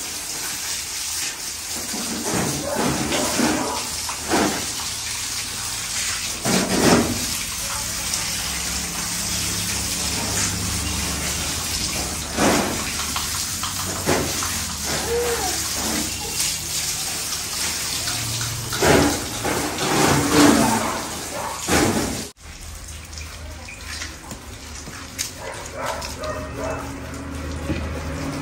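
Water spraying from a garden hose onto a goat's wet coat and splashing onto the concrete floor, with irregular louder splashes. About three-quarters of the way through it drops suddenly to quieter splashing and dripping as the coat is scrubbed by hand and water is poured over it.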